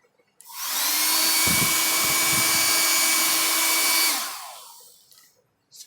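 Philips Salon Dry Compact hair dryer switched on, its motor spinning up to a steady blowing rush with a fan whine, then switched off about four seconds in and winding down.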